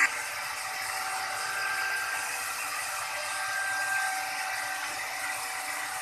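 Handheld electric plunge router running steadily while its bit cuts a carved pattern into wood: an even motor whine over the hiss of the cut.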